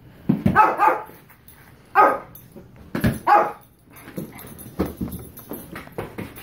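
Shih Tzu barking: a quick run of sharp barks in the first second, then single barks at about two and three seconds in, followed by softer, shorter sounds.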